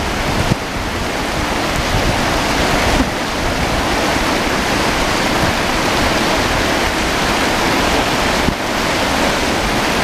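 Steady rush of the Firehole River's riffles and the steaming hot-spring runoff pouring down the bank into it, with wind on the microphone.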